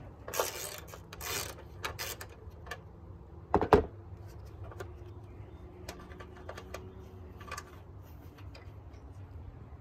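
Small metallic clicks and scrapes of 8 mm bolts being threaded by hand into a truck's radiator support and a bracket being handled, with one louder knock about three and a half seconds in.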